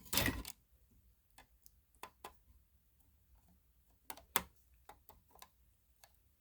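A short scrape, then scattered light clicks and taps, irregular and a second or so apart, the sharpest about four seconds in: small plastic and metal parts of a wall-mounted fire alarm device and its wiring being handled while it is taken down.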